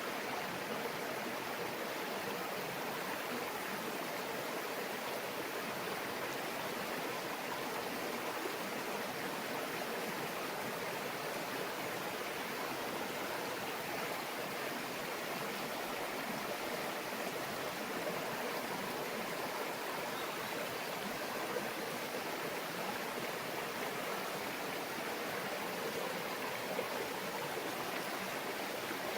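Small stream babbling steadily over stones, an even rush of water without breaks.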